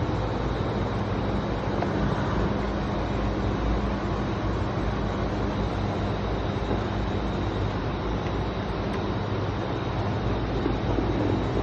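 Steady mechanical hum with a constant low drone and a faint, thin high whine above a broad even noise.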